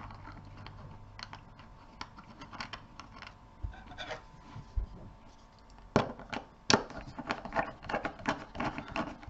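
Quiet small clicks and taps of a screwdriver and fingers on the brass terminal screws of a plastic junction box as a wire is fastened, with two sharper clicks about six seconds in and a quick run of small clicks near the end.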